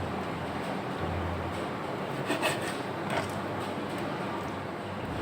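Knife slicing through raw chicken on a cutting board, a steady rubbing, sawing sound with a few light knocks of the blade on the board about two to three seconds in.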